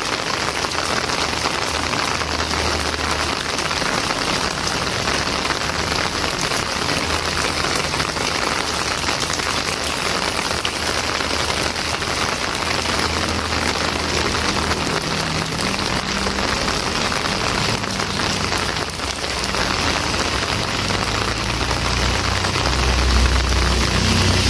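Heavy rain falling steadily on a street. Near the end a motorbike's engine comes closer and grows louder beneath the rain.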